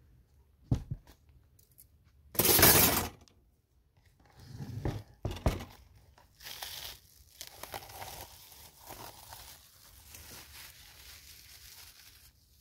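Metal kebab skewers clattering down on a table. A plastic bowl is set down with a couple of thuds. Then cling film crackles and crinkles as it is peeled off the bowl of marinated meat.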